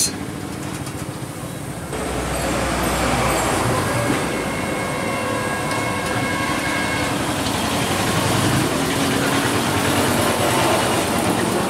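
Steady street traffic noise from motor vehicles running close by, growing louder with a low engine rumble about two seconds in.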